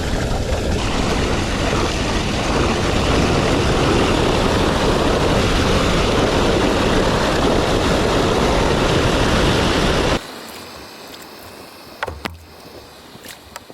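Loud, steady rush of water flowing through a drain that has just been cleared of its clog. It cuts off abruptly about ten seconds in, leaving faint outdoor background with a few sharp clicks.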